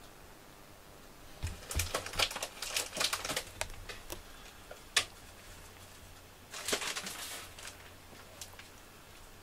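Close rustling and crinkling with quick sharp clicks, in two bursts about a second and a half in and again near seven seconds, with one loud single click between them.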